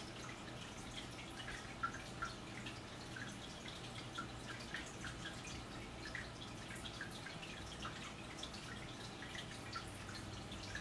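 Quiet room tone: a low steady hum with many faint, irregular small ticks and plinks.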